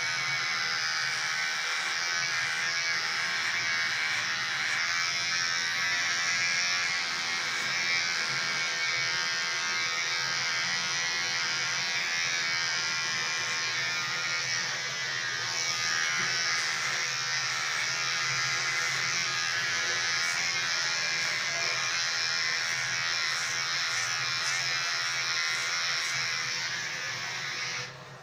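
Electric hair trimmer running steadily as it clips hair on the back and sides of a head, then switching off just before the end.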